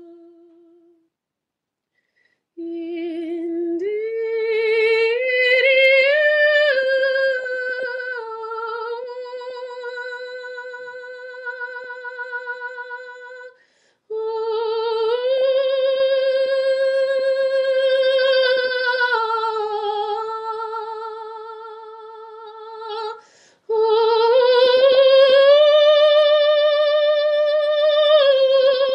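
A woman's solo voice singing long, held wordless tones with a slight waver, rising in pitch at the start of each phrase. Three long phrases, separated by short pauses for breath.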